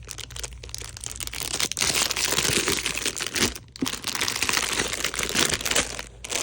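Plastic shrink wrap crinkling as it is worked off a book by hand: a dense run of crackles that grows louder about two seconds in, with a couple of brief pauses.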